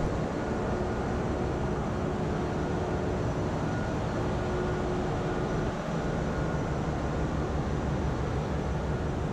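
Steady din of a large ship's engine room with its machinery running: an even low rumble with a few faint steady hums above it.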